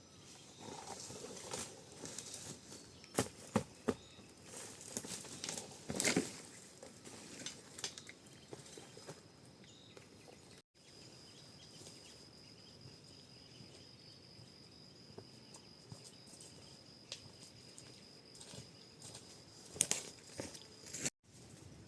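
Scattered rustling and light clicks and knocks, with a steady high insect buzz through the second half that stops shortly before the end.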